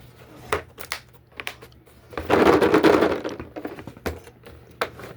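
Plastic socket-set case being handled: a few sharp clicks, then about a second of loud rattling as the case is shaken with its sockets and ratchet inside, then two more clicks.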